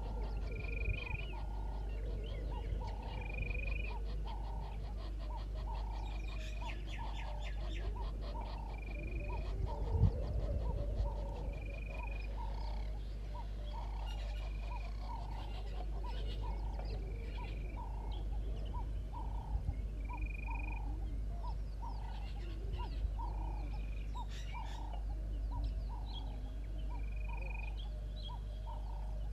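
Frogs calling in a steady chorus: a lower call repeating a little more than once a second and a short higher note about every two seconds. A single thump comes about ten seconds in.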